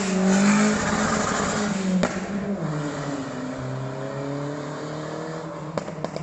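Tuned car engine held at high revs, dropping back with a sharp crack about two seconds in, then the revs falling slowly. Near the end the exhaust starts popping and crackling in a quick run of sharp pops as the engine comes off the throttle: the sound of a pop-and-bang tune.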